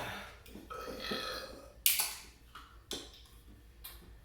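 A man burping repeatedly after gulping carbonated energy drink: a drawn-out, rough, pitched burp about a second in, then a sudden loud, sharp noisy burst just before the two-second mark, and shorter bursts after it.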